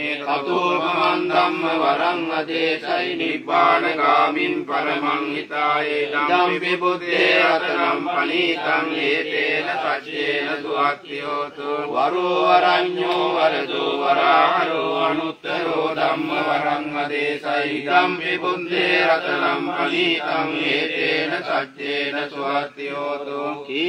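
Group of Theravada Buddhist monks chanting Pali pirith in unison: a steady, continuous recitation by several male voices.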